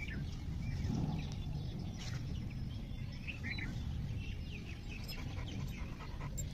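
Labrador retriever panting steadily, with birds chirping now and then in the background.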